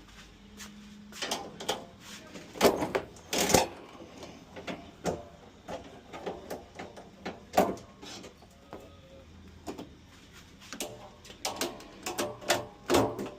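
A string of irregular knocks, clicks and clatters of hand work on metal and plastic parts, with a few sharper strikes about 3 seconds in and near the end.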